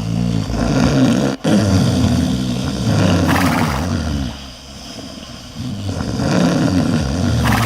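Loud snoring: long, low, rasping breaths that break off briefly about one and a half seconds in, ease to a quieter stretch past the middle, then build again near the end.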